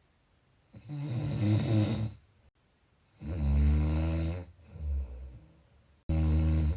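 A person snoring: three snores about two and a half seconds apart, each a low, buzzing drone lasting about a second, with quiet breaths between.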